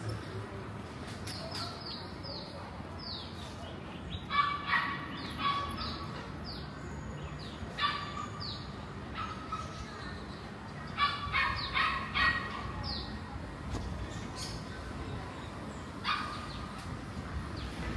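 Small animals calling in short clusters of sharp, pitched yaps every few seconds, with thin high falling peeps scattered in between.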